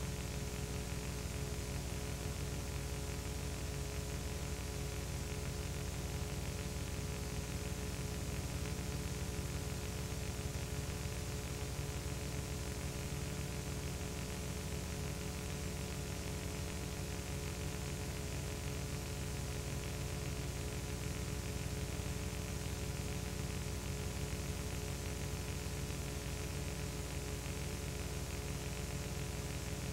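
Steady electrical hum with many steady overtones over a constant hiss, with nothing else heard: the noise floor of a video transfer of silent home-movie film.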